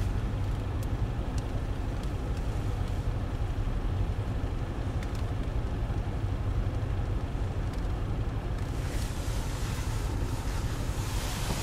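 Off-road truck engine running with a steady low rumble; a hiss swells in about nine seconds in.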